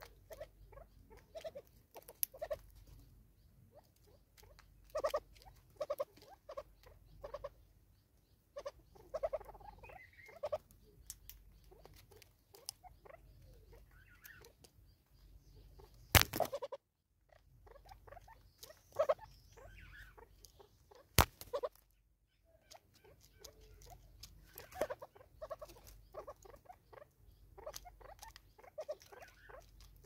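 Birds' bills pecking seed from a plastic tub on a wooden stump: irregular light tapping and clicking, with a few sharper knocks.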